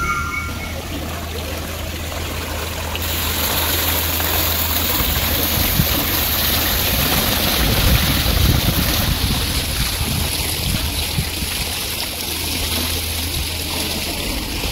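Steady rush of running water, a continuous hiss with no rhythm, growing louder and brighter about three seconds in.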